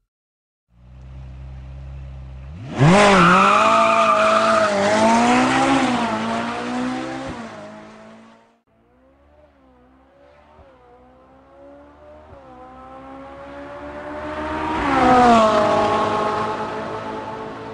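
Ferrari 458 Italia's V8 engine, first running low and steady, then accelerating hard about three seconds in with its pitch climbing and dipping before it fades away. It comes back, louder and louder, to a peak about fifteen seconds in, then its pitch drops and it fades as it passes by.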